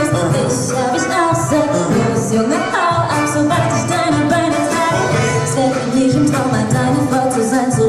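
Pop song performed live with a band: a woman singing into a handheld microphone over the band's backing.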